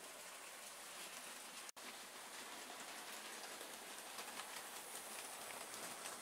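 Model freight train running on the layout's track: a faint, steady rattling hiss of wagon wheels on the rails with light clicks. The sound cuts out for an instant a little under two seconds in.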